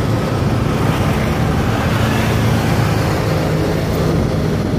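Motorbike riding in scooter traffic: a steady low engine hum under a constant rushing haze of road noise.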